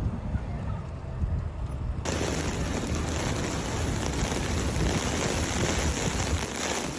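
Storm wind buffeting the microphone with a low rumble, joined about two seconds in by a steady hiss of heavy rain.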